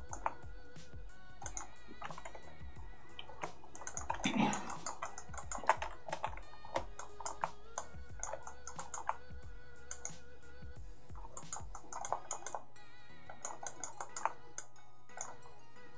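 Irregular computer keyboard and mouse clicks under quiet background music, with a brief louder rustle about four seconds in.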